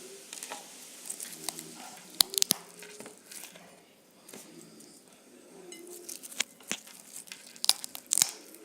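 Close-up mouth sounds of someone eating strawberries: sharp wet clicks and smacks of biting and chewing, in a cluster about two seconds in and again near the end, over soft low humming sounds.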